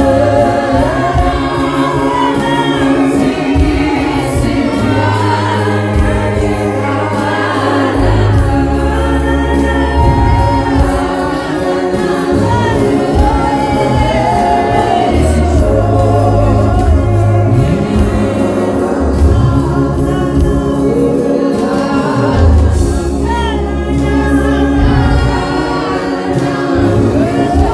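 Gospel worship song: a woman leads on a microphone and the congregation sings along in chorus. Underneath is a steady instrumental bass line that moves from note to note.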